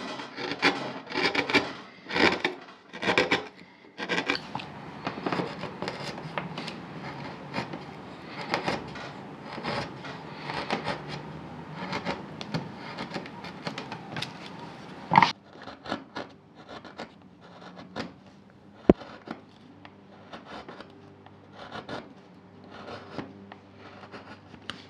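Hand-pushed carving gouge slicing and scraping through wood while cutting low-relief carving: a run of short scraping cuts, one after another, with a sharp knock about fifteen seconds in.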